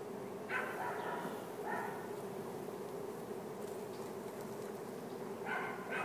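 Steady hum of a large honey bee swarm in flight, with a dog barking three times: about half a second in, near two seconds, and near the end.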